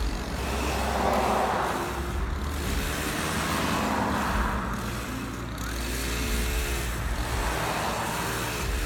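Road traffic: vehicles passing one after another over a steady low engine hum.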